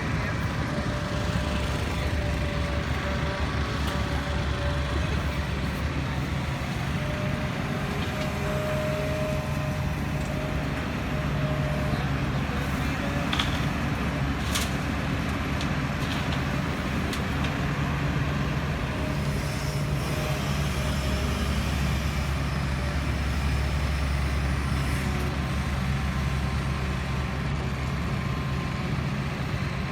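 Heavy diesel engines of construction machinery running steadily. Their low drone rises and falls a little in pitch, with a few faint clicks over it.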